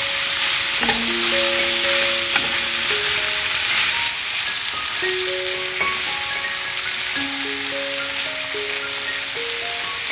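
Pork belly and shrimp sizzling in a hot nonstick skillet as they are stirred with chopsticks, a dense, steady frying hiss. A light plucked-note background melody plays over it.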